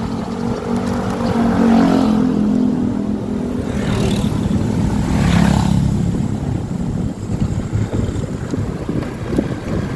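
Motorcycle engine running while riding, with wind and road rumble on the microphone; the engine note swells twice, and a brief whoosh passes about four to five seconds in.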